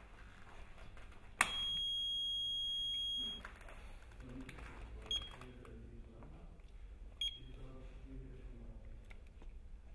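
Schlüter-DITRA-HEAT-E-CT cable tester sounding its warning signal: a steady high beep about two seconds long, starting about a second in, which signals a damaged heating cable. Two short beeps at the same pitch follow a few seconds later.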